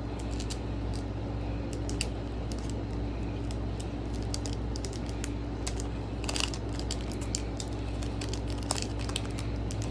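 Plastic booster-pack wrapper of Pokémon cards being worked open by hand: irregular crinkles and sharp little crackles, with a louder cluster about six and a half seconds in, over a steady low hum.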